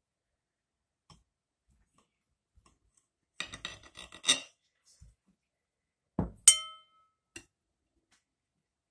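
A metal kitchen knife clattering against ceramic plates as a slice of cake is cut and lifted out: a short run of scraping clicks a few seconds in, then a dull knock and a sharp ringing clink about six and a half seconds in.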